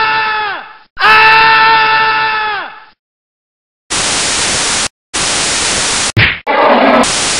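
A loud held pitched cry or tone, sliding down as it ends, plays twice in a row. After about a second of silence comes TV static hiss in blocks about a second long, broken by short gaps and a brief low thump.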